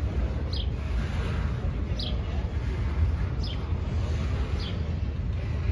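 Double-stack container freight train rolling past with a steady low rumble. A bird gives a short falling chirp about every second and a half over it.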